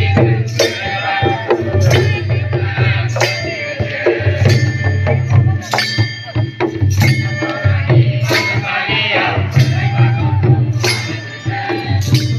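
Folk-style music with drums and jingling percussion: a heavy beat about every second and a third with lighter strokes between, under a wavering melody.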